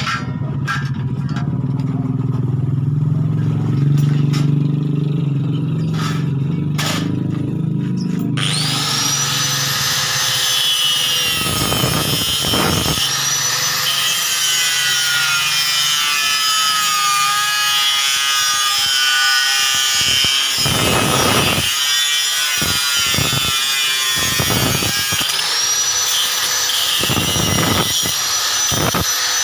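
Home-built coconut grater driven by a used water-pump motor: it runs with a low hum, then about eight seconds in a loud rasping scrape starts as coconut is pressed against the spinning grater, going on unevenly to the end.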